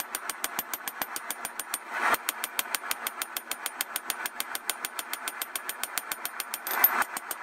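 A small engine running steadily, with a rapid, even beat of about nine to ten a second and two brief louder swells.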